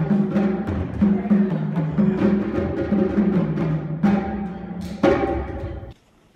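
Drum-driven music with a steady rhythm of deep, pitched drum strokes, a harder stroke about five seconds in, then cutting off suddenly near the end.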